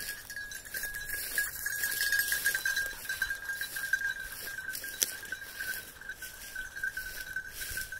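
A bell on a bird dog's collar, ringing continuously and pulsing unevenly as the dog runs through the field.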